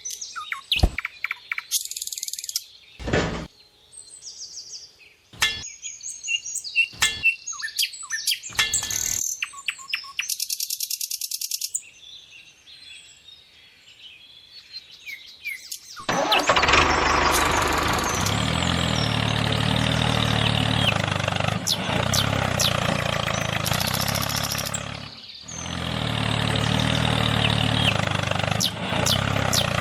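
Birds chirping amid scattered clicks, then a small engine starts running steadily about halfway through, dropping away briefly near the end before picking up again.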